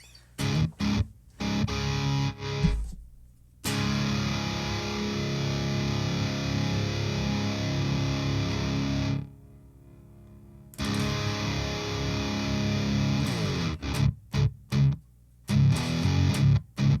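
Distorted electric guitar played through a Driftwood Mini Nightmare tube amp: a few short choppy chords, then two long held chords that each stop abruptly, then more quick stabbed chords near the end.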